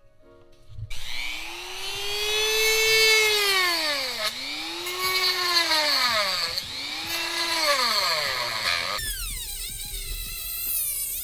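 Cordless drill/driver motor whining as it speeds up and slows down, three times in a row, then a different run of falling pitch near the end, as screws are driven to fasten an AC condenser to its plastic bracket.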